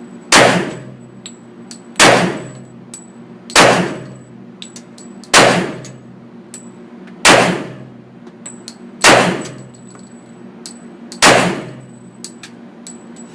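Glock 41 pistol firing .45 ACP rounds, seven single shots roughly one every two seconds, each ringing out in the reverberant indoor range, with light clinks between the shots.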